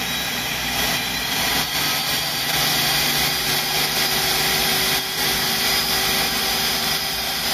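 Ninja 1500-watt food processor's motor running at high speed, its blade grinding raw cassava chunks in a little water to a pulp. The noise grows louder in steps during the first three seconds as the speed is turned up, then holds steady.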